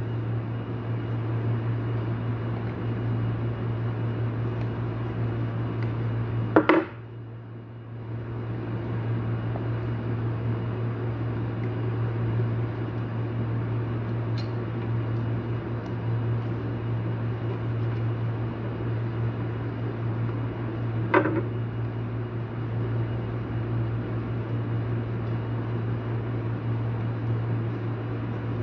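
Steady electric motor hum. About seven seconds in, a sharp click cuts it down for about a second, then it builds back up; another click comes about two-thirds of the way through.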